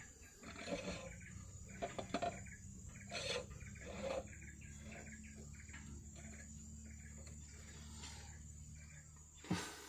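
Scattered metallic clinks and scrapes of hands and a tool handling the oil filter canisters on a Nissan RE10 lorry engine, with a sharper knock near the end. A steady low machine hum runs underneath from about two seconds in.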